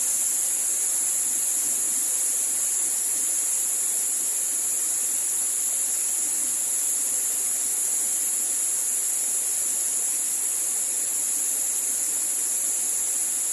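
Steady rush of Mae Klang waterfall, with a continuous high-pitched insect chorus ringing over it.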